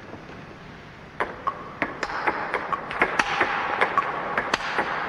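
Multi-ball table tennis practice: celluloid balls fed by the coach bounce on the table and are struck by a student's backhand. A rapid run of sharp clicks, about three or four a second, starts about a second in.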